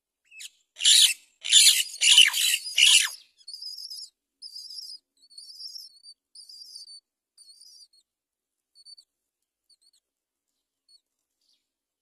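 Great mynas calling at the nest: four loud, harsh squawks in the first three seconds, then a run of thinner, high begging cheeps from the nestlings, about one a second, fading out.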